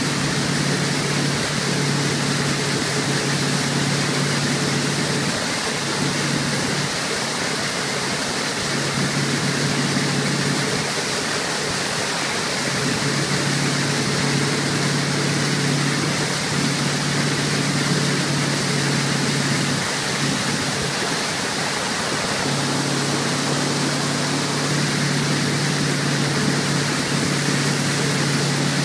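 Tow boat's motor running steadily under loud rushing water from the wake and wind noise; the low engine note wavers and fades three times before returning.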